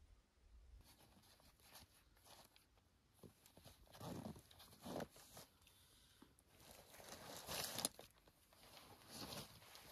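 Backpack and gear being handled: fabric and plastic rustling and crinkling in several short spells, the loudest a little past halfway.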